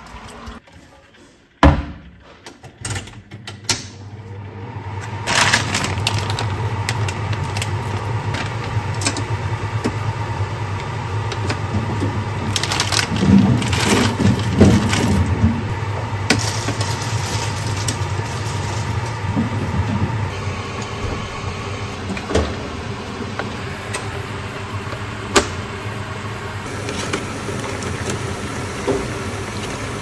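Hot oil in an electric deep fryer sizzling and crackling steadily as meatballs fry, over a low hum. A single sharp knock comes about two seconds in, before the sizzling starts.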